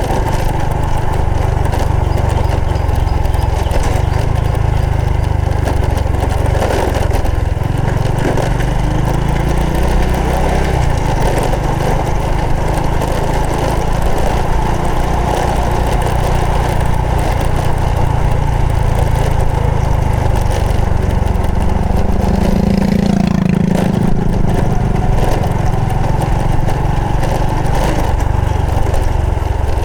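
Honda Supra X 125 FI's single-cylinder four-stroke engine running steadily under way on a ride.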